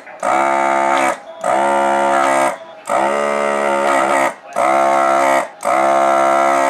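Vacuum pump of a Hakko FR-301 desoldering gun buzzing in repeated bursts of about a second each, with brief breaks between, as the trigger is pulled to suck molten solder from the transistor pins.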